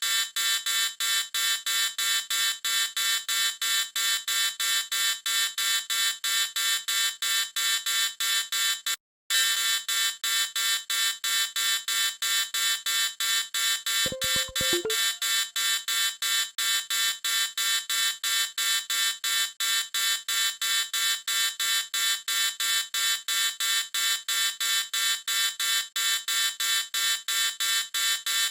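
Electronic alarm-type beeper sounding a rapid, steady, high-pitched beep, about four beeps a second, without pause. It cuts out for a split second about nine seconds in.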